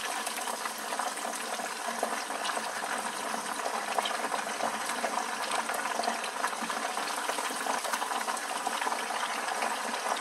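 Marinated chicken pieces deep-frying in hot oil: a steady, dense sizzle with fine crackling from the bubbling oil.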